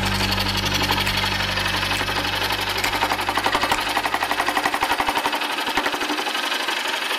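Scroll saw running and cutting through a wooden board, the blade chattering up and down in a fast, even rhythm.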